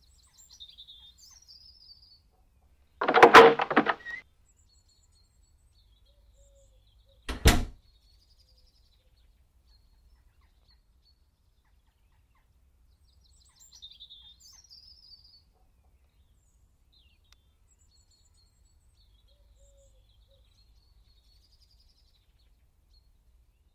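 A door: a loud clatter lasting about a second, three seconds in, then a single sharp thud of it shutting about four seconds later. Birds chirp faintly before and after.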